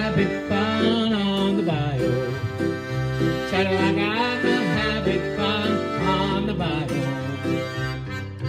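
Roland digital accordion playing an upbeat country tune through an amplifier speaker, a steady bass and chords under a moving melody line.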